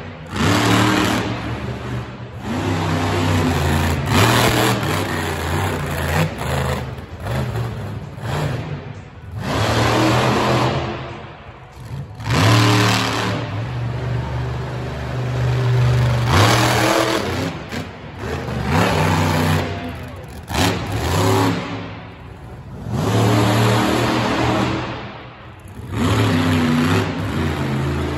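Monster truck's V8 engine revving hard in repeated bursts, the pitch climbing and falling with each stab of the throttle as the truck drives around the dirt track.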